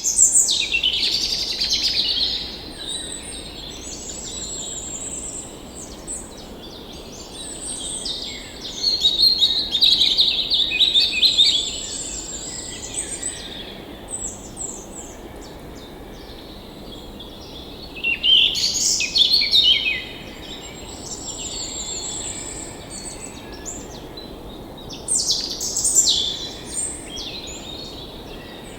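Several songbirds chirping and singing, with overlapping trills and calls that swell in louder bursts a few times, over a steady background hiss.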